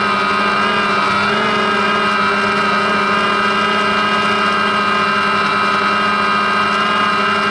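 DJI Phantom quadcopter's electric motors and propellers running steadily in flight, a loud, even, multi-toned whine and buzz heard from the camera mounted on the drone. The pitch wavers slightly about a second in.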